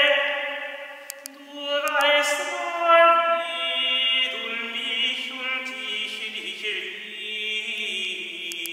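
Male voices singing early Netherlandish polyphony, long held notes shifting from chord to chord, with some vibrato.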